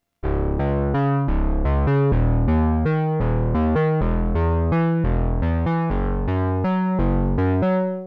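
Behringer Pro-800 analog polysynth playing a plucky bass patch: a quick run of short notes, about three a second, each opening bright and closing down fast. It is played dry, with no reverb.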